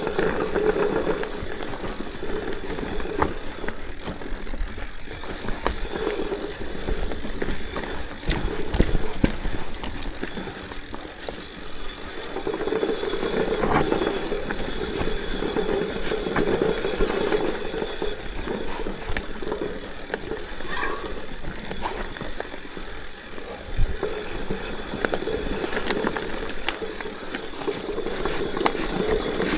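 Orbea Rallon full-suspension mountain bike ridden over a dirt trail: tyres rolling over the ground, with frequent rattles and knocks from the bike as it goes over bumps.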